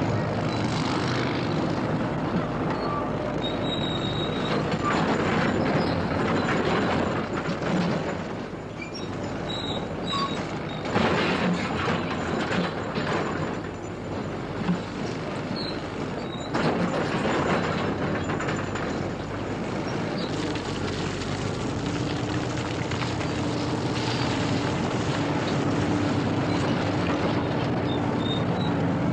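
Heavy diesel construction machinery working: a continuous engine rumble with scattered short, high metallic squeaks. A steadier engine note comes in about two-thirds of the way through.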